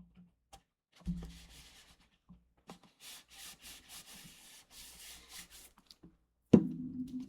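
Hand rubbing over paper and cardstock, pressing a glued layer flat: a short rub, then a run of quick back-and-forth strokes, about four a second. Near the end comes one sharp knock on the work surface, the loudest sound.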